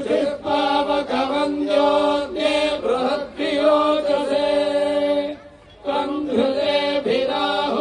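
Priests chanting Vedic Sanskrit mantras in unison over loudspeakers, in long held notes, pausing briefly about five and a half seconds in before going on.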